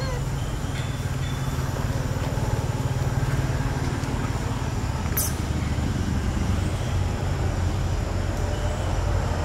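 Steady low rumble with a faint hiss over it, and a single short click about five seconds in.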